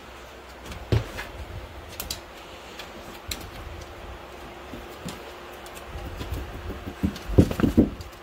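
Scattered knocks and clicks from a mother dog moving about a whelping box beside her newborn puppies, with a cluster of louder thumps near the end as she steps toward the edge of the box.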